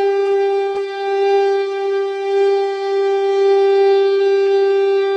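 Conch shell (shankh) blown in one long, steady note, rich in overtones, as sounded at the Ganga Aarti.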